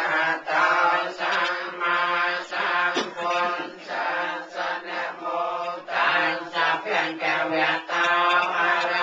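Buddhist chanting, recited on one steady low pitch in short rhythmic phrases with brief breaks between them.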